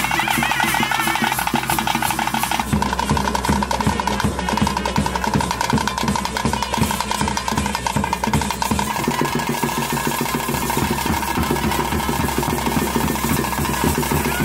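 Ritual music: drums beaten in a fast, steady rhythm under a sustained, high wind-instrument melody.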